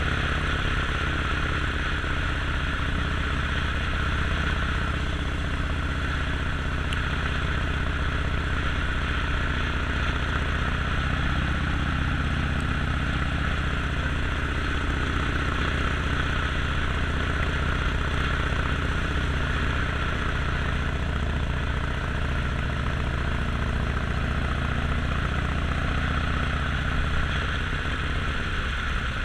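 Harley-Davidson Sportster XL1200X Forty-Eight's air-cooled 1200 cc V-twin engine running steadily, with little change in engine speed.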